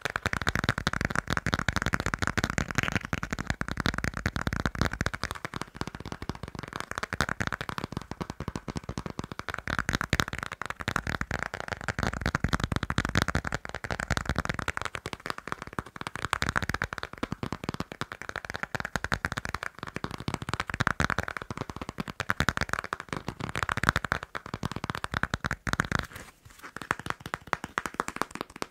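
Fast tapping and scratching on a passport: a dense run of rapid clicks with a scratchy rasp, thinning out briefly near the end.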